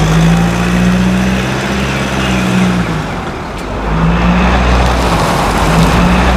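Motor vehicle engine running steadily. It eases off about three seconds in and picks up again a second later.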